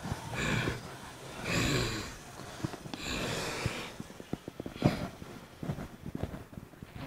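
A person breathing hard in three loud, hissing breaths, followed by scattered light clicks and knocks.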